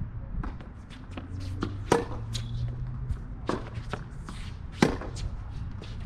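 Tennis racket striking the ball hard twice, about three seconds apart, the nearer hit the loudest. Fainter knocks of the ball bouncing and being hit at the far end, and light footsteps on the hard court, come between them.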